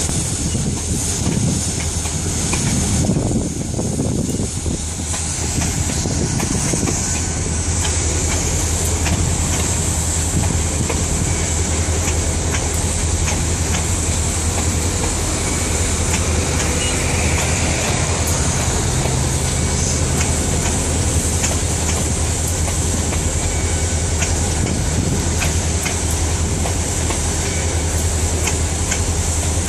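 Freight cars of a long freight train rolling past close by: steel wheels clicking over the rail joints over a steady rumble.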